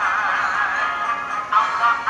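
Music with a melody that wavers up and down in pitch, thin and without bass.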